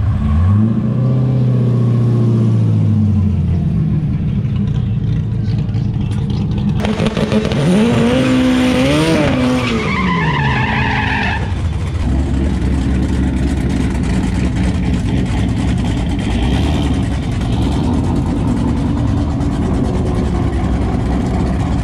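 Drag-strip cars: a Chevrolet Corvette's V8 revving up and settling back as it rolls forward, then an engine revving up and back down during a burnout with tyre squeal. After that comes a steady engine rumble of cars waiting at the start line.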